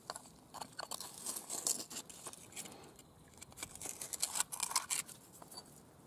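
A knife blade scraping and digging through wet, gritty mud and gravel to pry a stone loose: a run of short, irregular crunches and scrapes.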